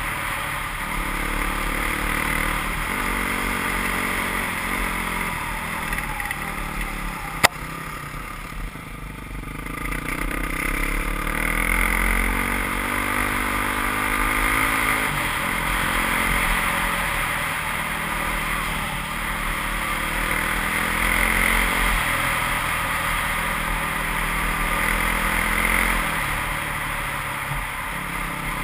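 Enduro motorcycle engine running as the bike rides a dirt track, heard from on board with wind and rattle over it. The revs drop about eight seconds in, then rise again as it accelerates. There is a single sharp knock just before the dip.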